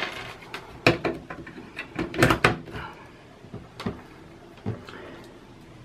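Clicks and knocks of a plastic plug-pack power adapter being handled and pushed into a power board socket. The loudest cluster of clicks comes a little over two seconds in.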